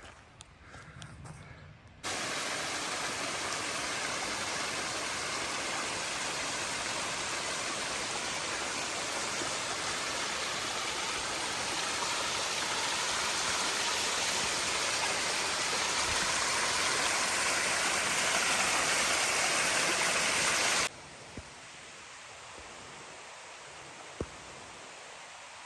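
Creek water rushing in a steady, even wash. It starts abruptly about two seconds in and cuts off abruptly a few seconds before the end, leaving a faint hiss; faint footsteps come before it.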